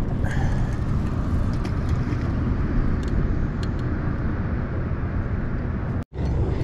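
Wind buffeting the microphone: a steady low rumble with no pitch to it, cut off for an instant by a brief dropout near the end.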